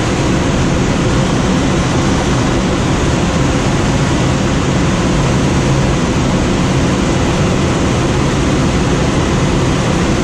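Steady, loud rush of air streaming over a glider cockpit in flight, with no engine and no changes.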